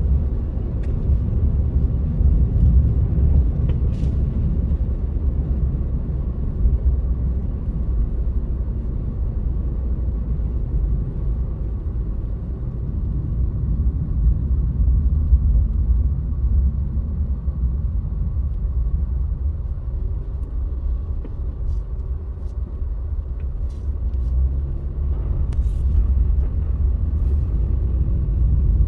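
A car driving on a snowy road, heard from inside the cabin: a steady low rumble of engine and tyre noise, with a few faint clicks.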